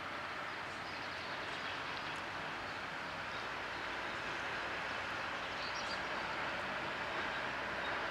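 Steady, even background noise of a rail yard with no distinct events, and a few faint high chirps about six seconds in.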